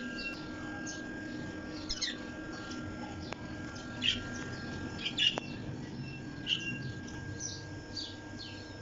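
Birds chirping: many short, high chirps, a few louder ones about two, four, five and six and a half seconds in, over a faint steady hum.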